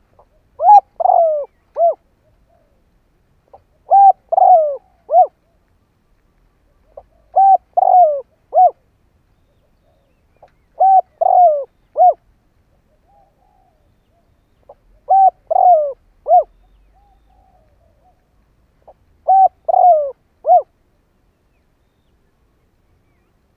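A decoy spotted dove cooing, the call used to lure wild doves. It gives six phrases, one about every four seconds, each a soft lead-in note followed by three low falling coos.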